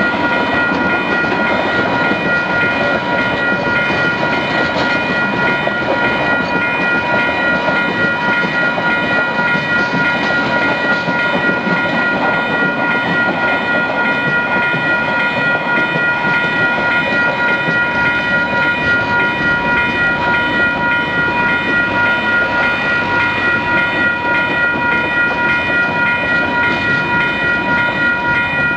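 A train rolling past on the rails, a steady rush of wheel noise with a regular pulsing clatter. A steady high ringing tone runs unchanged through it.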